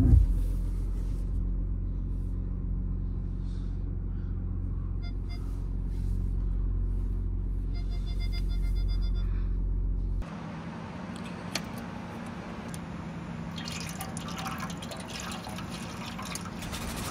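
Audi 3.0 TDI V6 diesel idling steadily, heard from inside the cabin, with a few short electronic beeps, while it runs with an oil-flush additive; the workshop traces this engine's noise to worn camshaft sprockets and a loose timing chain. About ten seconds in it changes to old engine oil pouring out of the drained sump.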